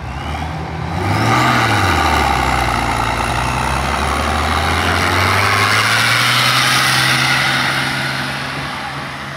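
Fiat 110-90 tractor's turbo diesel engine running hard under full load while pulling a sled. The engine note swells about a second in, holds strong, and fades near the end as the tractor draws away.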